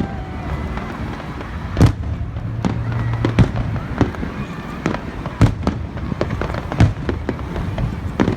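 Aerial fireworks bursting: about a dozen sharp bangs at irregular intervals, one to two a second, over a steady rumble.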